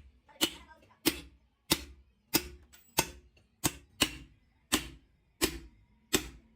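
Steady, repeated sharp blows of a hammer on metal, about one and a half strikes a second, each ringing briefly.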